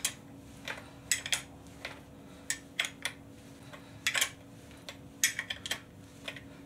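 Metal clinks and clicks of hand tools on a motorcycle front fork, coming in short irregular clusters, while the freshly oil-filled fork legs are being tightened up.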